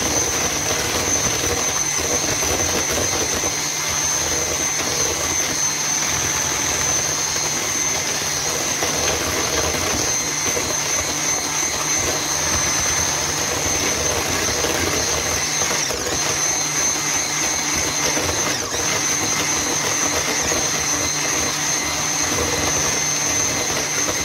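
Electric hand mixer running steadily, its twin beaters whipping eggs and sugar to a foam in a plastic bowl, with a steady high whine over the motor noise.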